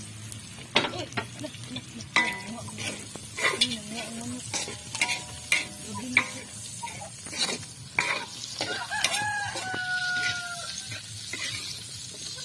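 A spatula scraping and knocking against a steel wok as diced meat with garlic and onion is stir-fried, with steady sizzling. A rooster crows in the background, briefly a couple of seconds in and with one long call about nine seconds in.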